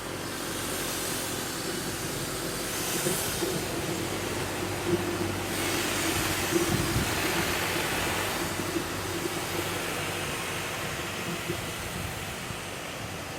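A passing vehicle: a steady rumble and hiss with a low hum, louder through the middle and easing off near the end.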